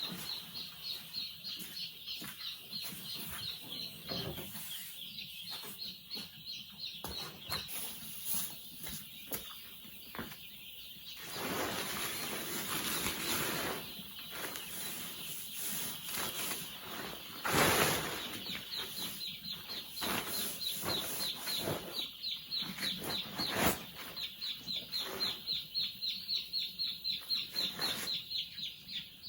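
Chickens calling, with rapid high-pitched chirps repeated several times a second, a spell of rustling and wing-flapping, and a couple of sharp knocks.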